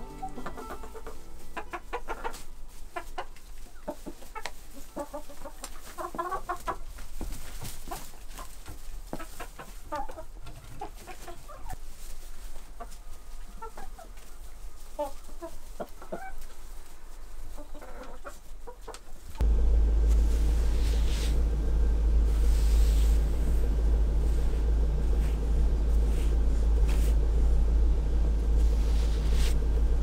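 Chickens clucking, a scatter of short calls, for about the first two-thirds. About 19 seconds in the sound cuts abruptly to a louder steady low rumble.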